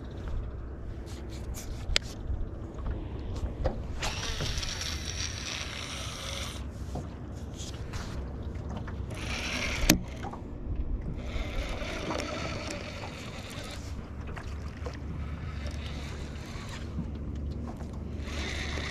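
Wind rumbling on the microphone and water lapping against a small aluminium boat, with stretches of hiss and a few sharp clicks from handling a fishing rod and baitcasting reel; the loudest click comes about halfway through.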